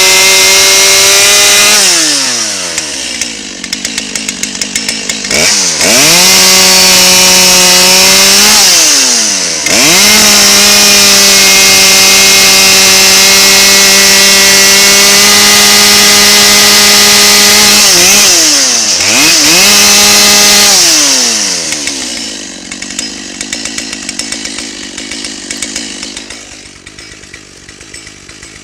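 Two-stroke chainsaw with a freshly sharpened chain cutting through red oak. It is held at full throttle in three long cuts and drops to idle between them with brief revs. Near the end it settles to idle.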